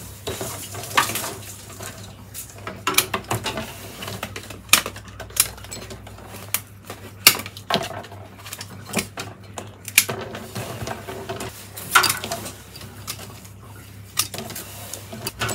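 Pruning secateurs snipping willow rods, a string of sharp, irregular clicks about every half second to a second as side shoots and ends are cut off.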